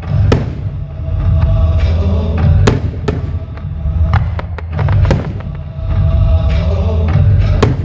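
Fireworks display: aerial shells bursting in a rapid series of sharp bangs, about a dozen in a few seconds, over a constant low rumble.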